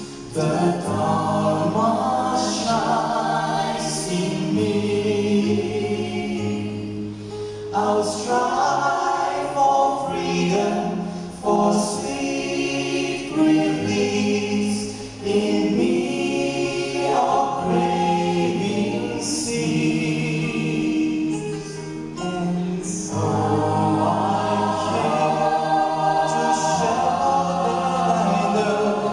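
Mixed vocal group of men and women singing a song in harmony into handheld microphones, heard through the hall's sound system, with several voice parts over a low sustained bass line.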